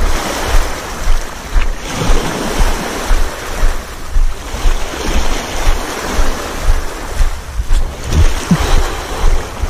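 Wind buffeting the microphone over small waves washing onto a pebble shore, with a regular rhythm of footsteps crunching on the pebbles.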